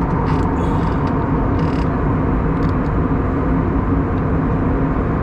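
Steady cabin noise of an Airbus A321neo in flight, heard from a window seat: a loud, even rumble of engines and airflow with a steady hum, and a few brief clicks in the first two seconds.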